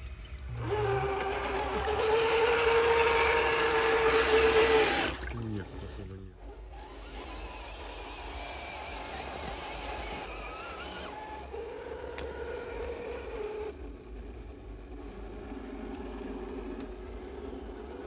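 Radio-controlled scale crawler truck's electric motor and gearbox whining under throttle. The whine starts about a second in, runs for about four seconds and stops, then comes back more softly for about two seconds later on.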